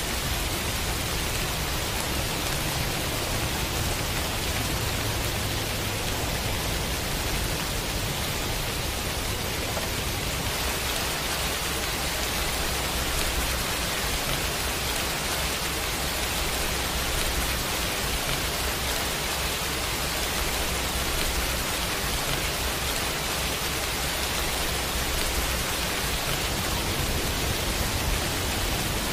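Steady pouring rain, an even hiss that holds at the same level throughout.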